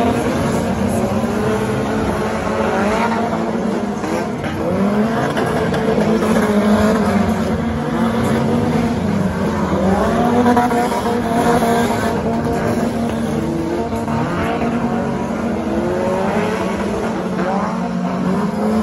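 Several stock car engines racing at once, revving up and falling back again and again, their rising pitches overlapping.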